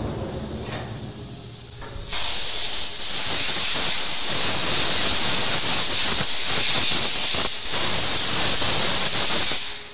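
Compressed-air blow gun hissing in one long blast that starts about two seconds in and cuts off near the end, with two short breaks, blowing chips out of the freshly milled threads before they are gauged.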